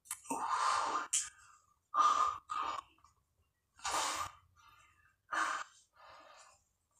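Heavy, forceful breathing of a man doing push-ups: a sharp, noisy breath about every second, louder and softer by turns, from the strain of a long set.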